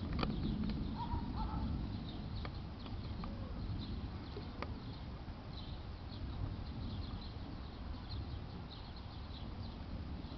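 Low rumble of thunder trailing off over the first couple of seconds, then a steady low background rumble. Small birds chirp high and repeatedly throughout.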